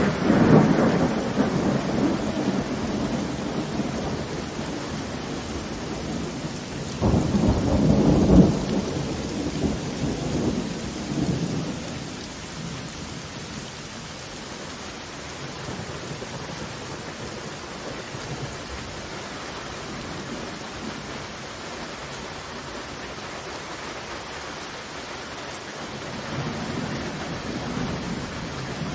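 Heavy rain falling steadily with rolling thunder: a rumble at the start that fades over a few seconds, a louder crack of thunder about seven seconds in that rolls on for several seconds, and more low rumbling near the end.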